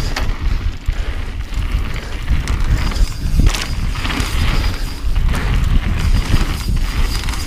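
Mountain bike riding fast downhill over a rocky dirt trail, heard from a camera mounted on its handlebars: wind buffeting the microphone as a steady rumble, with the bike knocking and rattling over bumps, the sharpest knock about three and a half seconds in.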